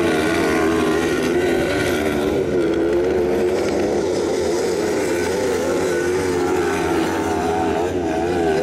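Several 500 cc kart cross buggy engines racing on a dirt circuit, their pitch rising and falling as the drivers rev up and lift off, with more than one engine heard at once.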